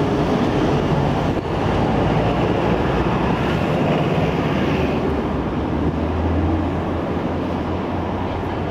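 Steady city traffic noise, a continuous rumble, mixed with wind on the microphone.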